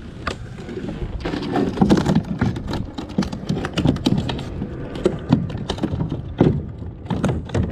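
Irregular clicks, knocks and rubbing of gear being handled close to the microphone aboard a plastic fishing kayak.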